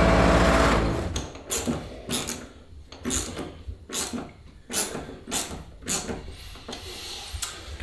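Theme music ending in the first second, then a run of short metallic clicks and scrapes, about two a second, from a hand tool driving a screw into a steel seat-frame bracket.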